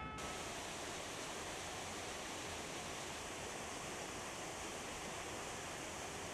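Steady rushing noise of a waterfall, even and unchanging.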